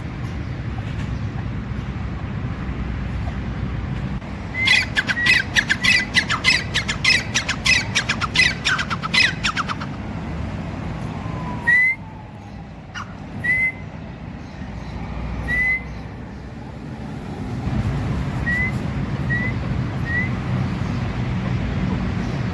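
Grey francolin calling: a fast run of loud, sharp notes lasting about five seconds, then single rising notes a couple of seconds apart, and three short quick ones near the end.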